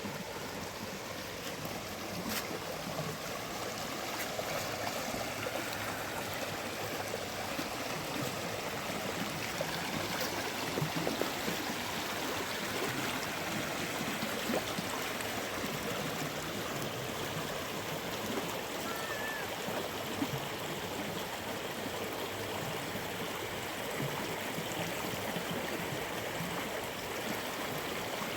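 Steady rushing water, an even hiss of flowing water with no break, and a brief faint high chirp about two-thirds of the way through.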